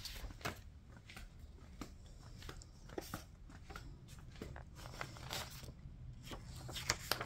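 Faint footsteps on a garage floor, light irregular scuffs and clicks, over a steady low rumble.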